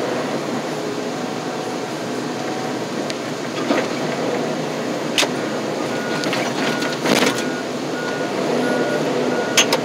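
Diesel loader tractor running as it drives, with a few metallic knocks and rattles. From about six seconds in, a reversing alarm beeps about twice a second.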